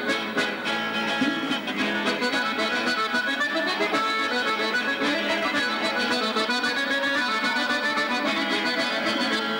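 Accordion playing a traditional Sardinian dance tune with a steady beat.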